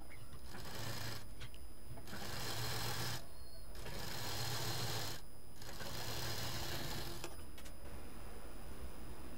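Sewing machine stitching a long seam down a doubled fabric strip, running in five spurts with short pauses between them.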